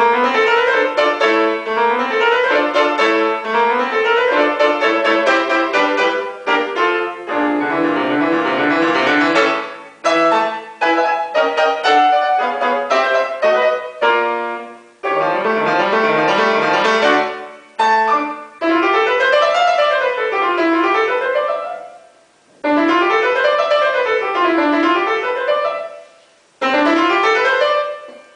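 Solo piano playing fast running passages, with rapid up-and-down sweeping figures in the second half and several brief pauses between phrases.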